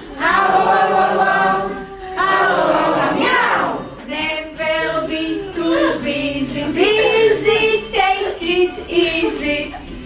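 A group of voices singing together, mostly unaccompanied: long held notes for the first few seconds, then a run of short, quick repeated syllables.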